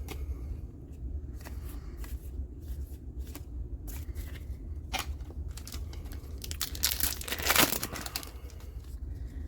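Foil trading-card booster pack wrapper crinkling and being torn open, with scattered light clicks of card handling; the loudest, longest rip comes about seven seconds in.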